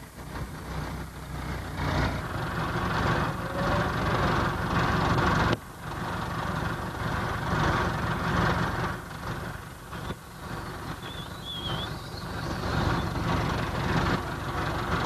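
Farm tractor's diesel engine running, a steady low rumble. The sound breaks off abruptly about five and a half seconds in, then the rumble picks up again.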